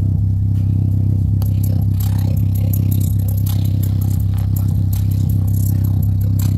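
Sony speaker's woofer playing a steady deep bass test tone. Light scraping clicks come through on top as a fingertip presses on the vibrating dust cap.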